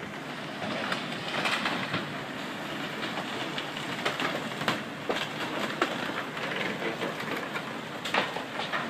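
Moored motor cruisers being crushed by a cement carrier's bow: irregular sharp cracks and crunches of breaking boat hulls and fittings over a steady rushing noise.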